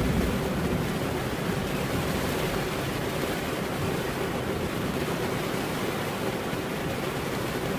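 Steady rain falling, an even hiss with no distinct drops. The low rumble of a thunderclap dies away right at the start.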